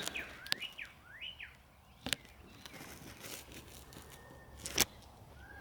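Birds chirping in short, quick calls that rise and fall, mostly in the first second and a half. Three sharp clicks stand out, the loudest nearly five seconds in.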